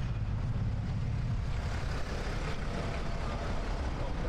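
City street ambience: a steady low rumble of traffic under a faint hiss.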